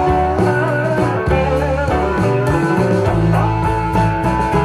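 Guitar-led blues-style music played back over loudspeakers through a single-ended 845/211 triode tube amplifier. Held lead notes bend and glide over a steady bass line.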